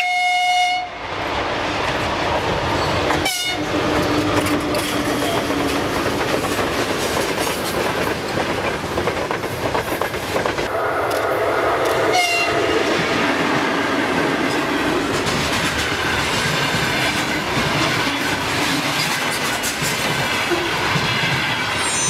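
Freight trains passing: a steady rumble of wheels on rails with clickety-clack, and a locomotive horn sounding at times.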